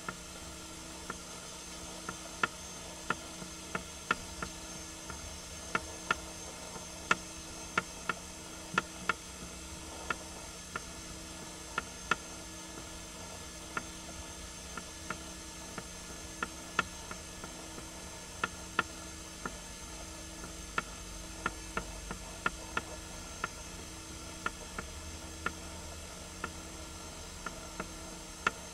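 Irregular sharp clicks, roughly one or two a second, over a steady low electrical hum.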